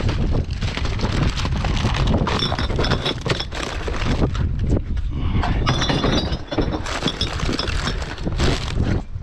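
Glass bottles and other recyclables clinking, knocking and rattling together as a recycling bin is rummaged through by hand, over a constant low rumble. The sharp ringing clinks come in clusters from about two seconds in.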